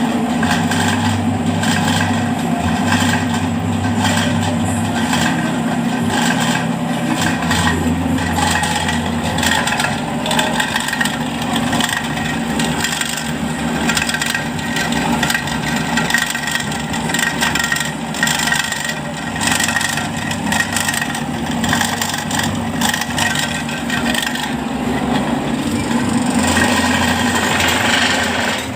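Batako (concrete brick) press machine running: a steady motor hum with dense rattling and scraping of metal and wet concrete mix.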